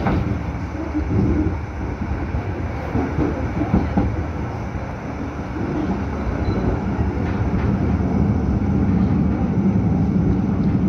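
A 1976 Düwag GT8 tram running along the track, heard from inside the passenger cabin: a steady rumble of wheels on rails and running gear, with a few knocks in the first few seconds and a low hum that grows stronger from about halfway.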